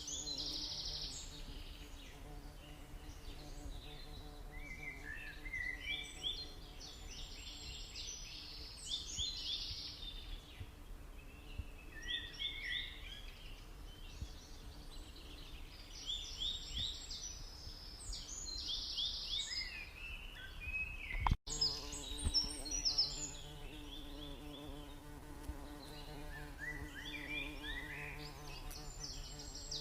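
A steady buzzing hum with clusters of quick high chirps every few seconds. Everything cuts out for an instant about two-thirds of the way through.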